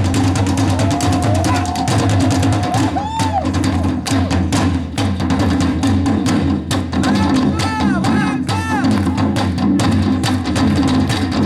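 Korean traditional percussion ensemble drumming a fast, dense rhythm full of sharp strokes over deep drum tones. Short rising-and-falling pitched calls ride over the beat about three seconds in and again around seven to nine seconds in.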